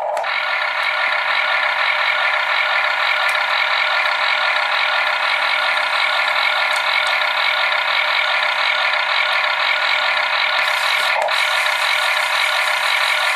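A 1/16 RC Cat track loader's built-in engine sound module plays a steady diesel engine sound through its small tinny speaker. The geared electric arm-lift drive runs underneath as the loader arms rise to full extension.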